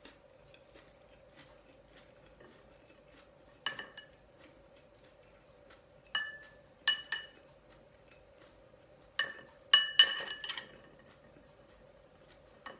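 A metal spoon clinks against a glass bowl as sauce is scooped from it: about eight sharp, ringing clinks, one near four seconds in, a few around six to seven seconds, and a quick cluster near ten seconds.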